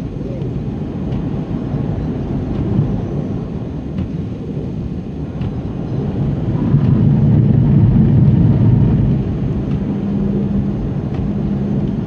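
Car cabin noise while driving on a snowy highway: a steady low rumble of engine and tyres, swelling louder for a couple of seconds about seven seconds in.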